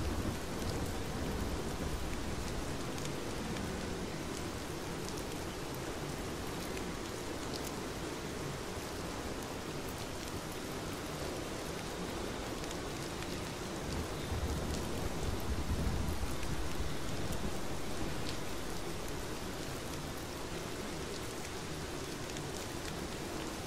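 Steady, dense rain falling, with fine pattering drops throughout. A deeper low rumble swells up about two-thirds of the way through, then eases off.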